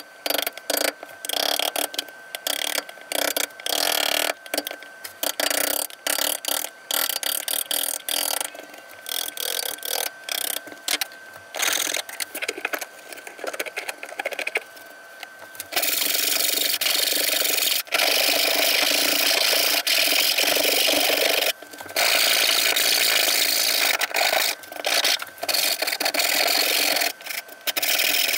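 Hand tools scraping the edge of a cypress board: a chisel paring in short, uneven strokes, then from about halfway a rasp worked back and forth in long, nearly unbroken strokes, with one brief pause.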